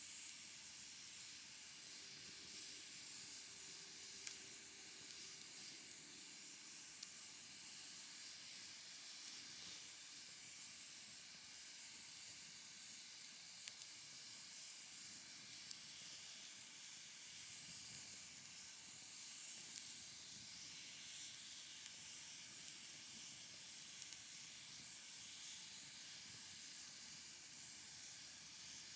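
Wood fire burning: a steady hiss broken by about half a dozen sharp pops and crackles, the loudest about four seconds in.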